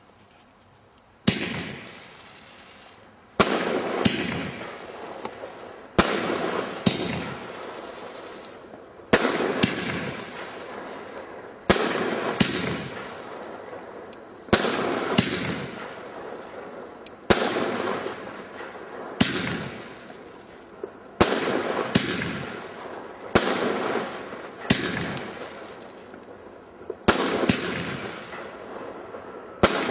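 Weco 'Cogan' fireworks battery (cake) firing shot after shot: a sharp launch bang roughly every two seconds, sometimes two in quick succession, each trailing off in a fading hiss as the comets and star bursts go up.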